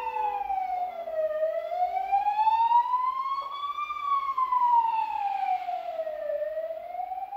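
Ambulance siren passing, a slow wail that falls and rises twice, sweeping between a low and a high pitch about every two and a half seconds.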